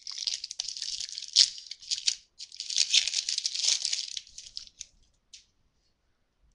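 A 2011 Panini Contenders football card pack wrapper is torn open and crinkled by hand, in two stretches of crackling about four seconds long in all, with a sharp snap about a second and a half in. A few light clicks follow as the cards are handled.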